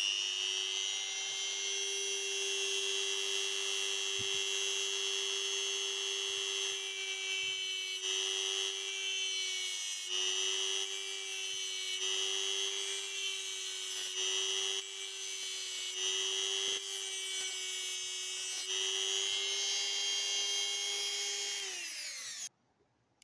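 Ryobi EHT150 corded rotary tool running at speed with a small cut-off disc, grinding through the thin nickel strips on an 18650 battery pack. A steady high whine dips slightly in pitch now and then under the load of cutting, then winds down and stops near the end.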